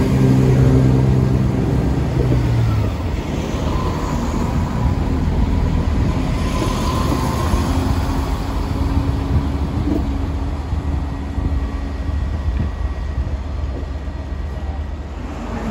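CrossCountry diesel multiple unit trains running through the station: a loud diesel engine note from the passing train fades out about three seconds in, leaving a steady rumble of engines and wheels on the track.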